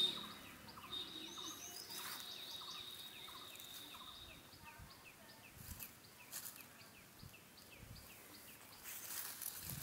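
Faint outdoor ambience: birds chirping in short, quickly repeated high calls. A steady high tone runs under them and stops about four and a half seconds in.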